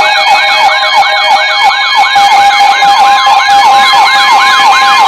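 Electronic siren in a rapid yelp, sweeping up and down about four times a second over steady tones.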